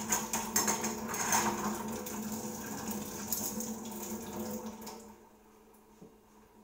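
Kitchen tap running into the sink while used utensils and dishes are rinsed, with light clinks of the items against each other; the water stops about five seconds in.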